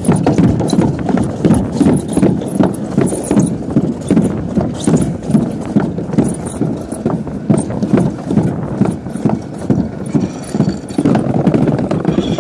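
Alpine slide sled rolling fast down the track: a loud, continuous rumble with rapid, uneven knocks.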